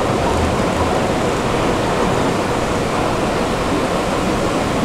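Steady, loud rushing rumble in an underground metro station, with no distinct clicks, squeals or announcements.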